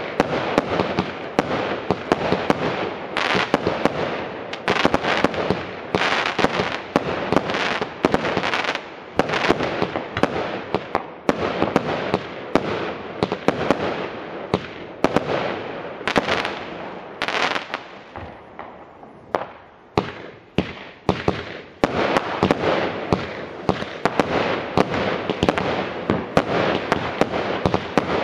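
Multi-shot fireworks cakes firing in rapid succession: a dense run of sharp bangs and bursting reports, several a second. The shots thin out for a few seconds about two-thirds through, then another dense volley follows.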